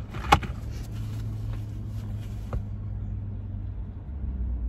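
A sharp click about a third of a second in and a fainter one a couple of seconds later, from a foundation bottle being handled, over a steady low hum inside a car.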